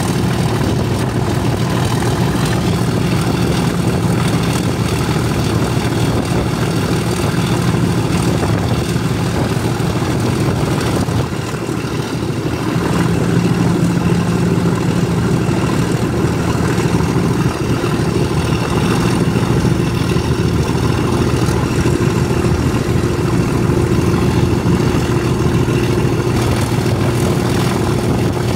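Class 37 diesel locomotive 37403's English Electric 12CSVT V12 engine working under power as it hauls its train, heard from the coach window just behind it with wind and running noise. The engine note dips briefly about eleven seconds in, then picks up and holds steady again.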